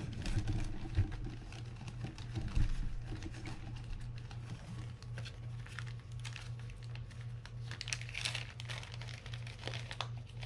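A small clear plastic parts bag crinkling and rustling as it is opened and searched for a new washer, with scattered small clicks and a couple of knocks from handling parts on the bench. A steady low hum runs underneath.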